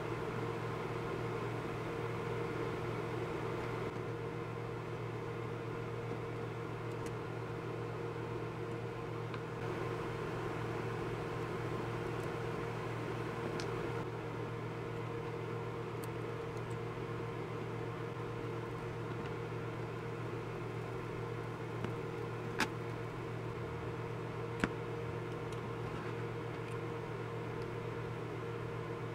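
A steady low hum, as of a machine running in the room, with a few short sharp clicks about two-thirds of the way through from the plastic mouse parts and circuit board being handled.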